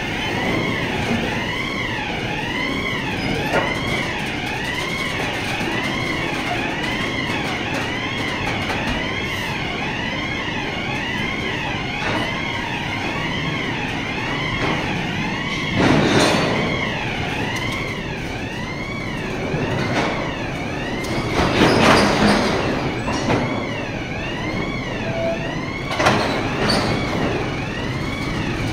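Coal wagons moving slowly through a wagon tippler, with a warbling warning siren going the whole time. Loud clanks of the wagons and their couplings come about halfway through and twice more later.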